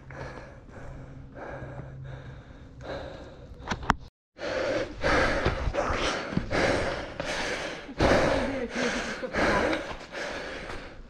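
A climber breathing hard and fast, about two heavy breaths a second, after a steep rock scramble. The breathing is fainter at first, drops out for a moment about four seconds in, then comes back louder.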